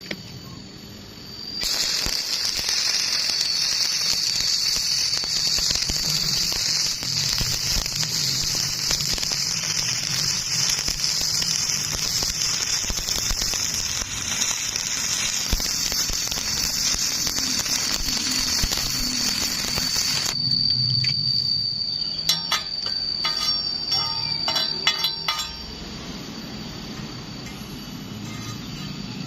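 Stick (shielded metal arc) welding arc crackling and sizzling steadily for about eighteen seconds, with a thin high whine through it, then cutting off suddenly. A quick run of sharp metallic clicks and taps follows for a few seconds.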